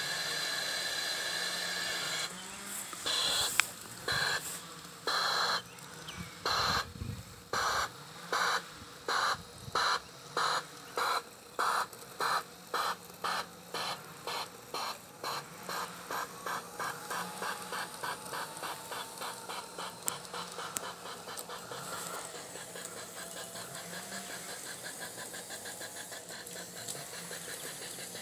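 G-scale Bachmann model steam locomotive's sound unit chuffing as the train gets under way: a steady tone for about two seconds, then chuffs about a second apart that quicken with the train's speed until they run together into a continuous hiss.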